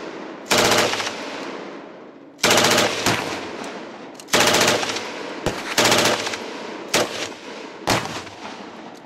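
Tripod-mounted belt-fed machine gun firing a string of short automatic bursts, each about half a second or less, with the last few very short. Each burst is followed by an echo off the surrounding hills.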